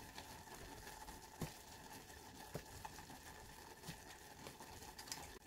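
Near silence: faint room tone with a steady low hum and three soft clicks, a second or so apart.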